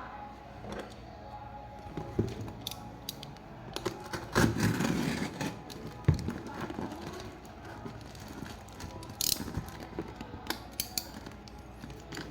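Packaging being handled during an unboxing: scattered clicks, scrapes and rustling, loudest about four to five and a half seconds in, with a sharp click just after.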